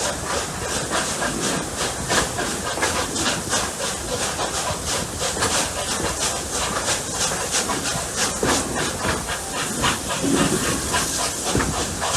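Double-headed steam locomotives Rx207 and 621 working upgrade: a quick, even run of exhaust chuffs with hiss.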